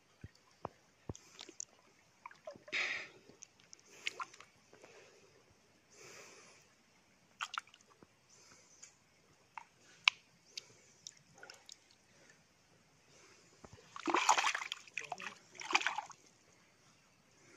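A hand splashing and rummaging in a shallow stream over a pebble bed, with scattered sharp clicks of pebbles knocking together. Short bursts of splashing come now and then, the loudest near the end as the hand goes into the water.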